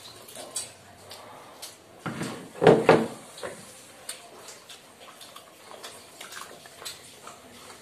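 Close-up eating sounds: chewing, lip smacks and fingers mixing rice and curry, with small clicks throughout. About two seconds in comes one much louder noisy sound lasting about a second.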